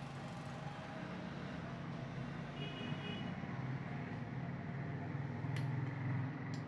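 Low steady rumble that swells near the end, with two short light clicks near the end.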